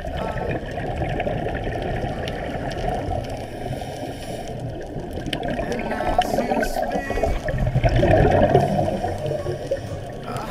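Muffled underwater noise picked up through a camera's waterproof housing, mostly low and dull, growing louder about eight seconds in.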